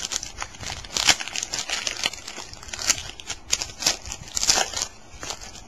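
Crinkly card-pack wrappers and cards being handled: a run of irregular crackles and rustles as packs are opened and cards flicked through.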